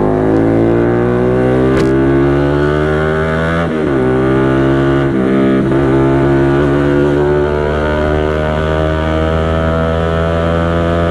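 Bajaj Pulsar NS200's 200 cc single-cylinder engine through a loud aftermarket SC Project-style exhaust, accelerating through the gears. The note climbs, dips at a gear change about four seconds in and again about five and a half seconds in, then rises slowly as the bike pulls on.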